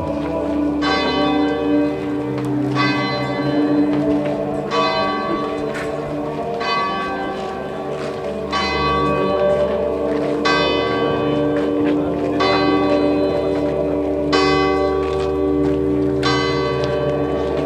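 Bell tolling slowly, one stroke about every two seconds, each ringing on until the next, over a steady low hum of sustained tones.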